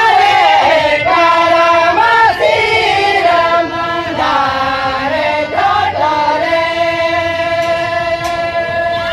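Singing of a Santali lagne song, a melody that bends between notes and ends on a long held note over the last few seconds.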